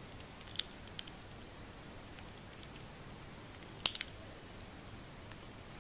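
Faint, scattered plastic clicks from a stickerless 3x3 speed cube being handled and turned, with one sharper click about four seconds in.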